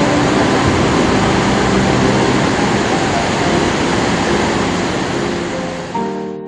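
Flash-flood water and debris rushing through a valley: a loud, steady rumbling roar. It drops away near the end as music comes in.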